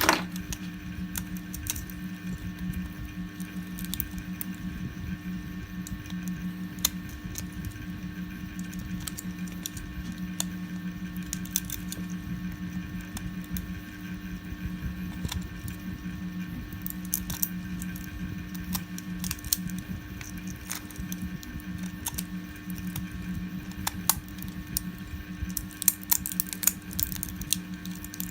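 Small sharp clicks and snaps of plastic 3D-print support material being cut and broken off a printed model with pliers, the pieces clinking as they drop. The clicks come irregularly and grow more frequent near the end, over a steady low machine hum.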